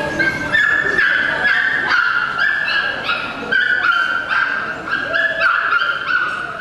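Small dog yipping and whining in quick succession, high-pitched, about two calls a second with barely a break.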